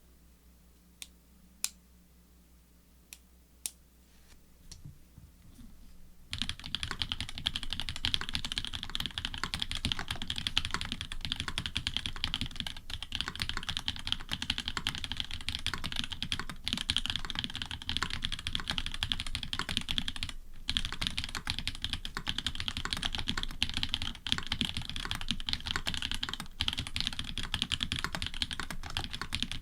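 Typing on an Orion v2.5 custom mechanical keyboard with frankenswitches (Cherry bottom housings, Cream tops and stems), GMK keycaps, an FR4 plate and plate foam. There are a few single key presses in the first seconds, then fast, continuous typing from about six seconds in.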